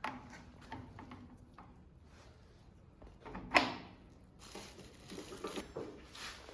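Workshop handling of press tooling and strut parts: scattered light clicks and knocks, with one sharp knock that rings briefly about three and a half seconds in.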